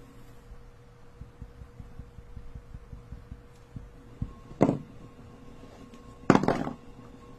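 Motorised spin-art turntable running with a steady hum, with light knocks from a paint marker working on the spinning disc. Two louder handling thumps follow, a short one a little past halfway and a longer one near the end.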